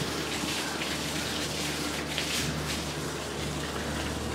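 Open-air railway station ambience: a steady rushing noise over a low, steady hum, with faint scuffs of footsteps on the footbridge stairs.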